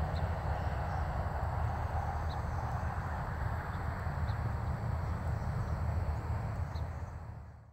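Outdoor ambience: a steady low rumble with a distant hiss, and a few faint, short bird chirps scattered through. It fades out near the end.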